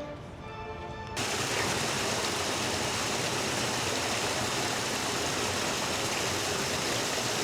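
Steady, even rush of flowing water, starting abruptly about a second in and holding unchanged.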